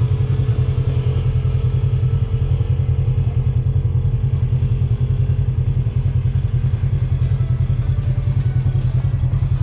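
Polaris RZR side-by-side's engine running at low speed as the machine rolls along a dirt trail: a steady low drone with a fast, even pulse and a faint whine above it.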